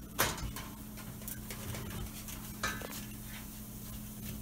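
Cookware and utensils clinking while pasta sauce is handled in the pan: a sharp clink just after the start and another, ringing briefly, a little under three seconds in, with smaller clicks between.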